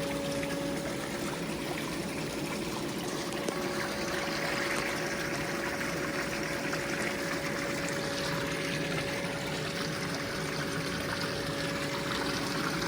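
Intex sand filter pump running on the rinse setting, water flowing and trickling out, with a steady hum from the pump under the water.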